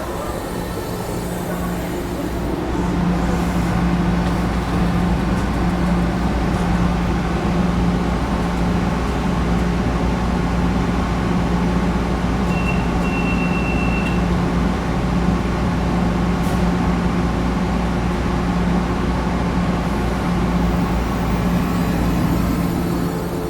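Heavy vehicle engine running steadily with a deep hum, and a brief high-pitched tone about halfway through.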